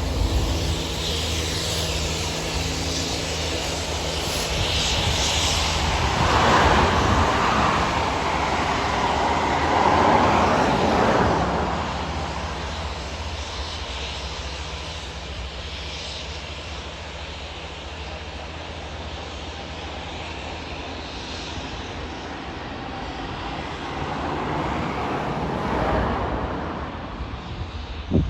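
Class 66 diesel locomotives (EMD two-stroke engines) hauling a railhead treatment train past, with the hiss of its high-pressure water jets. A steady engine hum is plainest in the first few seconds. A loud hissing rush follows about 6 to 11 seconds in, then the sound fades and swells again briefly near the end.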